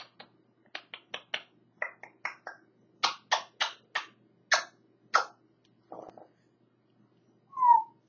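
African grey parrot making about twenty sharp clicks and pops in quick runs, then a brief rasp, and near the end a short falling whistle.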